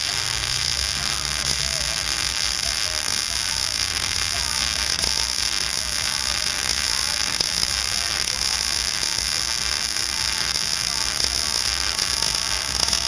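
MIG welder arc running a continuous bead: a steady, loud crackling hiss with a low electrical hum beneath it, cutting off suddenly at the end.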